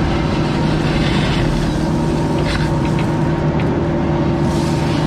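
Bobcat E26 mini excavator's diesel engine running steadily at working speed while digging, with a couple of short, sharper noises partway through.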